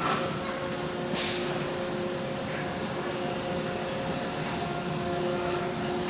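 Robotic car-body spot-welding line running: a steady machine hum with a few held tones, and a short hiss of air about a second in.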